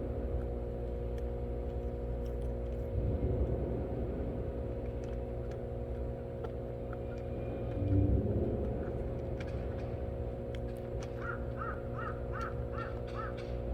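A quick run of about seven short, repeated animal calls near the end, over a steady low hum, with a couple of dull thuds earlier on.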